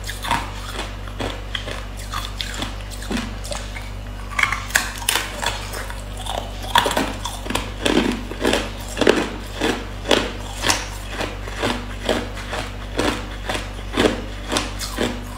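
Hard ice being bitten and chewed: a quick run of sharp crunches and cracks, sparse at first and packed closely together from about four seconds in.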